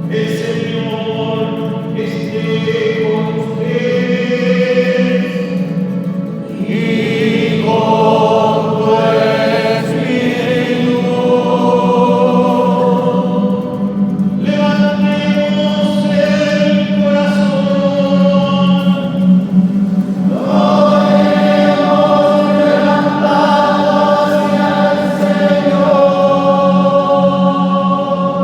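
A choir of voices singing a slow liturgical chant in long held notes, with a steady low note sustained underneath.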